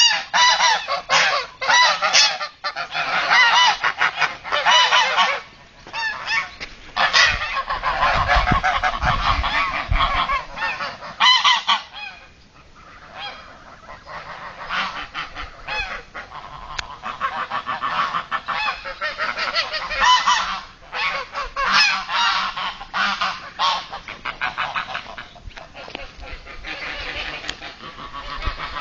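A flock of domestic geese honking, many birds calling over one another almost without pause, with brief lulls about five, twelve and twenty-one seconds in.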